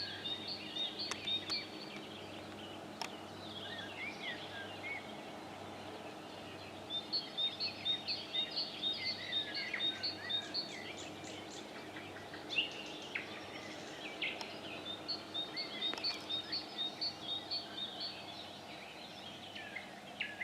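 Wild songbirds singing, one repeating a fast run of high notes in bouts a few seconds apart, over a faint low hum.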